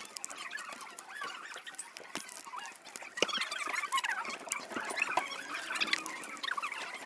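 Paper being folded and creased by hand: a busy run of crinkling and small squeaks, with scattered sharp clicks.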